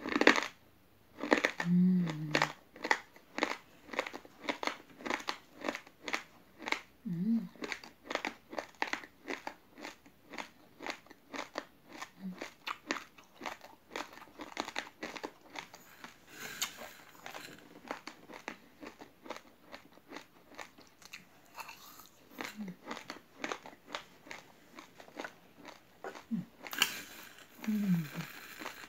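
Crunching of a mouthful of uncooked raw rice grains being chewed: crisp, even crunches at about three a second, with a few short hums. Near the end, dry rice grains are poured off a metal spoon onto a plate in a brief rush.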